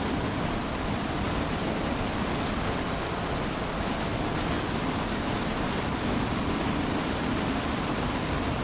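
Steady, even hiss of background noise, with no distinct strokes or tones standing out.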